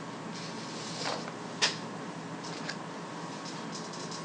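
Steady room tone of hiss and faint hum in a pause of the narration. There is a short soft rush of noise about a second in, a sharp click just after, and a few faint ticks later.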